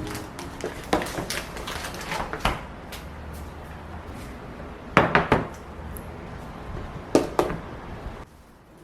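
Household handling sounds, likely dishes and kitchenware: a string of light knocks and clatters, with the loudest clusters about five and seven seconds in, over a low steady hum that drops away near the end.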